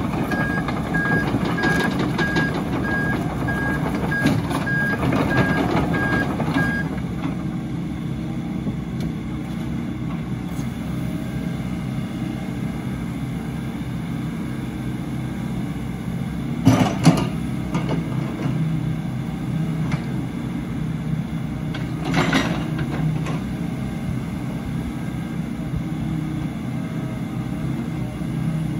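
2015 Case CX80 zero-tail-swing excavator's diesel engine running steadily under hydraulic work. For the first seven seconds its travel alarm beeps about twice a second, then stops. Two sharp knocks come about two thirds of the way through.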